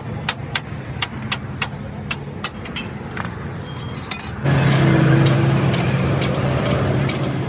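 A vehicle engine running steadily, with a regular light clicking about three times a second over it; about halfway through the sound gets suddenly louder and the clicking stops.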